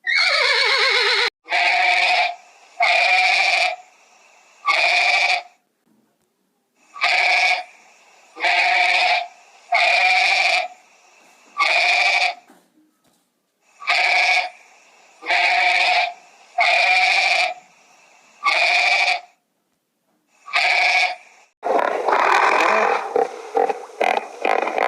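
An animal calling over and over, about fifteen short calls of steady pitch, each under a second, in groups with short pauses between them. Near the end a different, denser sound takes over.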